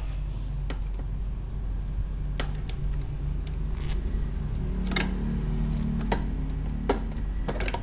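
Scattered light clicks and taps of metal parts and screws being handled while a Xiaomi electric scooter's rear wheel is fitted back into its frame, about eight in all, the sharpest about five and seven seconds in, over a steady low hum.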